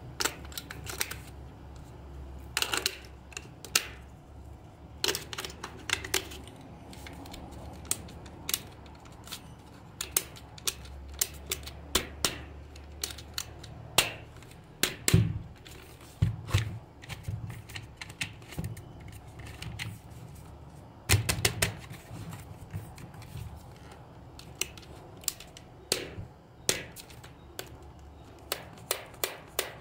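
Hard plastic clicks and clacks from handling a battery-powered plastic toy: cylindrical batteries clicking into its battery compartment and the plastic shell knocking as it is turned and pressed. The clicks come irregularly throughout, with a few louder knocks.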